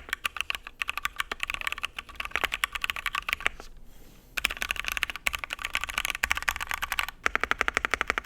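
Typing sound test on a Shark60 mechanical keyboard built with stock JWK 62g switches, a polycarbonate plate, Durock v2 stabilizers and Milk Cover keycaps: rapid keystrokes in bursts, with a short pause about halfway through and a quick, even run of strokes near the end.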